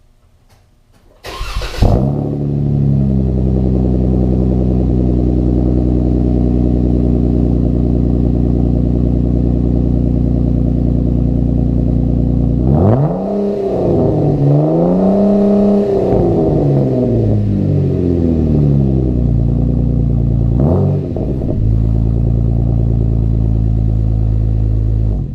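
2015 Jeep Wrangler JK's 3.6-litre V6 starting about a second in and settling to a steady idle through its exhaust. About halfway through it is revved several times, the pitch rising and falling with each rev. After one short blip a few seconds later it returns to idle.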